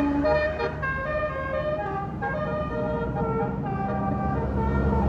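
Bus 'telolet basuri' melody horn playing a quick tune of short, stepping notes over the low rumble of the bus engine. The notes thin out about halfway through, and the engine rumble grows louder near the end.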